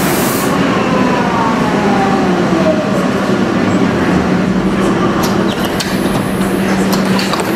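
U-Bahn subway train pulling into the platform and braking to a stop, its motor whine falling steadily in pitch over the first few seconds over a steady low hum. A few sharp clicks and knocks come in the last seconds as it comes to rest.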